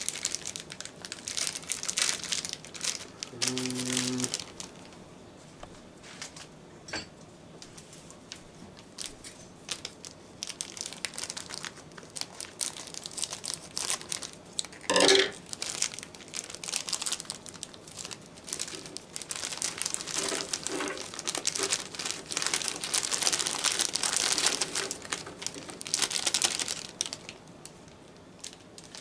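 Crinkly plastic snack bags of cheese puffs being handled, opened and emptied onto a plate, in bursts of rustling and crinkling. A brief squeak about halfway through is the loudest sound.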